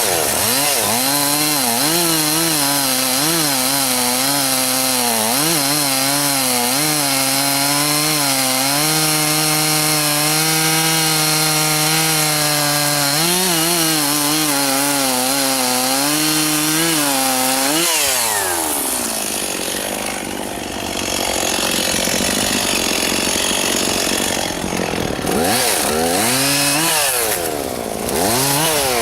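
Gas chainsaw bucking a juniper log: the engine runs at high revs, its pitch dipping and recovering as the chain bites into wood that is getting more solid. About eighteen seconds in it drops off toward idle, then revs up and down again near the end.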